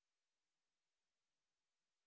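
Near silence: only a faint, even hiss, with no sound from the fork-truck or the ship.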